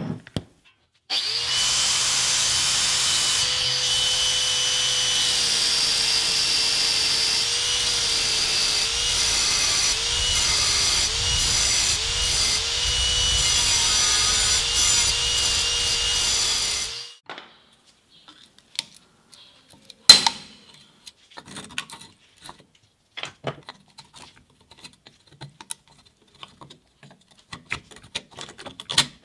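Angle grinder running and grinding the demolition hammer's steel barrel, its pitch dipping again and again as the disc bites in; it stops about 17 seconds in. Afterwards, light handling clicks and one sharp knock.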